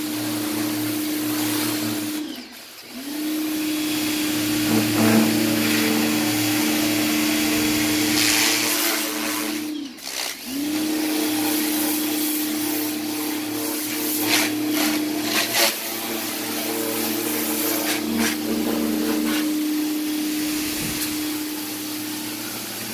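Pressure washer running with a steady motor hum and the hiss of its spray. It cuts out briefly twice, about two and a half and ten seconds in, and winds back up each time.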